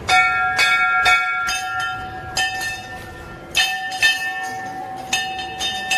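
Metal temple bell rung again and again: about nine strikes at uneven intervals, each ringing on into the next.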